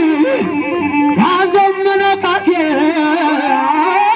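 A male voice chants shilela, the Amhara heroic war chant, through a microphone and PA in long, wavering held notes, over amplified band music.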